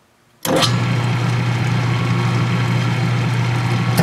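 Metal lathe switched on about half a second in, then running at steady speed with a steady hum, the cast iron valve body turning in the chuck.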